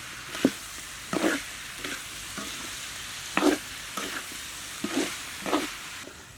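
Duck and bamboo shoot curry cooking in a pan with a steady hiss while a utensil stirs it, scraping the pan about every second or two. The hiss drops away just before the end.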